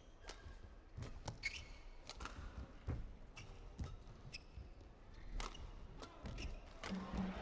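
Badminton rally: sharp racket strikes on the shuttlecock, together with players' footwork and shoe squeaks on the court, coming about once a second at an irregular pace. Near the end a steady low tone comes in.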